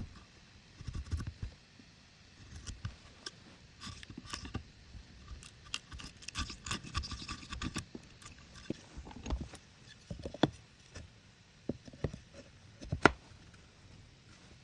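Irregular scraping, light taps and knocks of wood and tools being handled. There is a sharp knock at the start, another about ten seconds in, and the loudest about thirteen seconds in.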